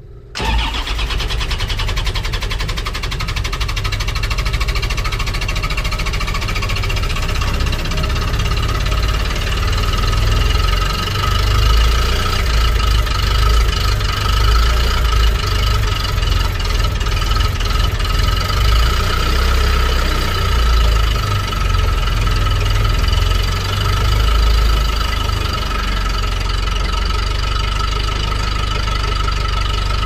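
New Holland skid steer's diesel engine cold-starting in sub-zero cold (about −3 °F). It catches abruptly about half a second in and keeps running loudly. The level rises and falls for a while, then steadies near the end.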